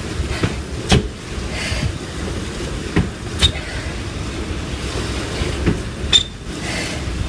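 A person doing burpees on a tiled floor: several sharp thuds and slaps a few seconds apart as hands and trainers land, with a few heavy breaths, over a steady low rumble.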